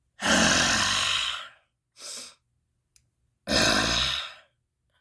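A person sighing twice, each a long breathy exhale of a second or more, about three seconds apart, with a shorter, softer breath between them.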